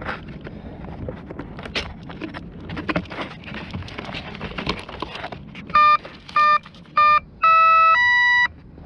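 An RC plane's electronic speed controller beeping: three short beeps, then two longer tones stepping up in pitch, the arming signal that the motor is ready. Before the beeps, scattered clicks and handling knocks over wind noise.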